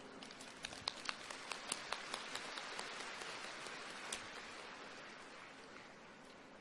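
Faint scattered applause from an audience: sharp, uneven claps over a hiss, thinning out and dying away after about four seconds.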